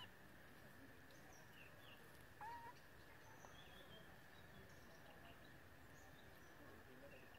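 Near silence: faint outdoor ambience with a steady hiss, scattered faint bird chirps, and one short rising call about two and a half seconds in.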